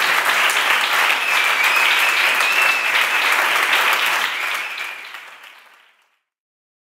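Audience applauding, with a high whistle over the clapping for a couple of seconds. The applause fades out and stops about six seconds in.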